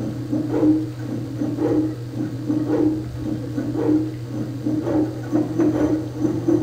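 Small servo motors and toothed belts of a flying-saw motion-control demonstration rig running, with a whirring pulse about once a second as the saw axis repeats its cutting cycle, over a steady low hum.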